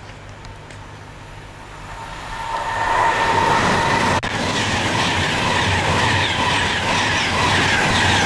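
Electric passenger train drawing in, growing louder over the first three seconds, then running steadily with a high-pitched whine or squeal from the wheels and brakes. There is a single sharp click about four seconds in.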